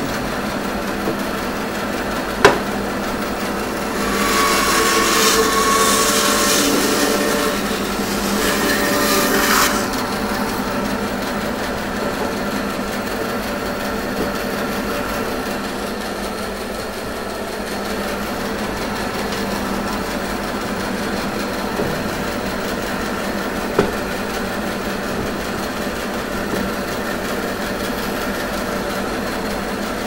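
Bandsaw running steadily with its motor hum. From about four to ten seconds in it cuts through red ironbark, a louder, noisier stretch, then it runs on without load. A sharp knock comes about two seconds in and another about two-thirds of the way through.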